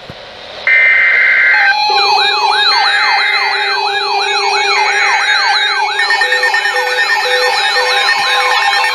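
Electronic sirens and alert tones layered together. A harsh steady tone burst comes first. About a second and a half in, a fast yelping siren sweep starts, repeating about three times a second, with a higher warbling tone and steady tones underneath.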